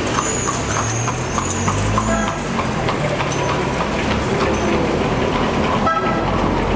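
A horse-drawn carriage going by on a city street: hooves clopping and the wheels rattling, with a thin high squeal in the first second or so, over steady traffic noise.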